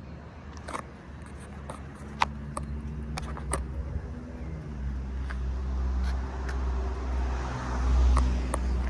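A motorcycle engine running steadily, its low hum getting louder from about halfway through, with scattered sharp clicks over it.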